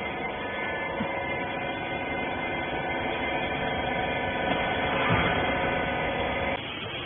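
Rags baler's hydraulic power unit (electric motor and pump) running, a steady hum made of several steady tones that cuts off suddenly near the end.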